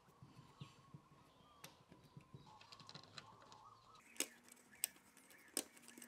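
Very quiet handling noise: faint scattered clicks of a screwdriver working the terminal screws of a plastic thermostat base plate, and fingers on the plate and wires, with a few sharper clicks in the second half.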